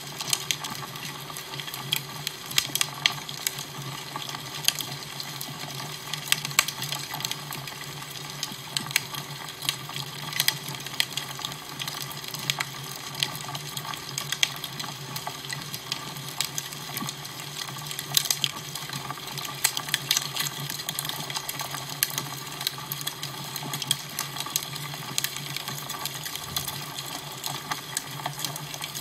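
Crackling fire: frequent small pops and snaps over a steady hiss, with a low steady hum underneath.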